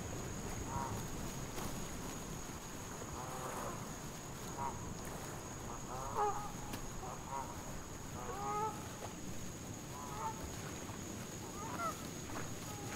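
Waterfowl calling: short honks, one every second or two, over a low wash of wind and water.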